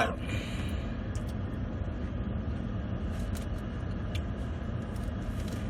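Steady low rumble of a running motor, like a car engine idling heard from inside, with a few faint clicks and rustles of food being handled.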